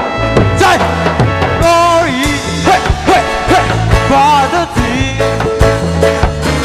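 Reggae band playing an instrumental passage: bass line, drum kit and a wavering lead melody line.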